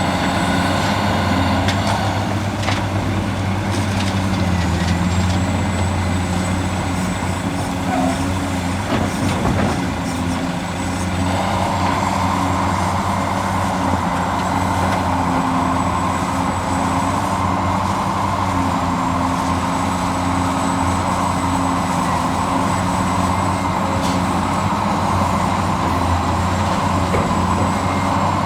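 Scale RC excavator and dump truck working, a steady machine drone with a thin high whine that dips and returns several times. The sound thickens about eleven seconds in.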